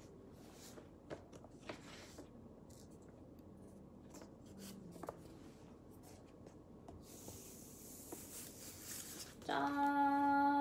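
Paper rustling and light handling clicks as a vinyl LP is slid out of its paper inner sleeve, with a soft hiss of the disc sliding out over a couple of seconds. Near the end a woman's voice holds one sung note for about a second.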